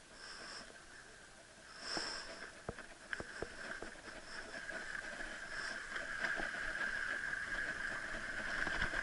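Bicycle rolling down a rough dirt trail, heard from a camera on the handlebars: tyre and riding noise with a steady hum that grows louder as the bike speeds up, and a few sharp knocks and rattles from bumps, a cluster of them about three seconds in and another near the end.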